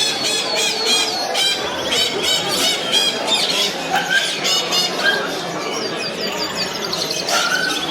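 Many small caged birds chirping and calling at once: dense, overlapping quick high chirps and short squawks, over a steady background din.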